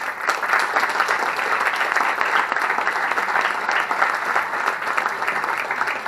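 A small audience applauding: a steady patter of hand claps that starts suddenly and keeps an even level.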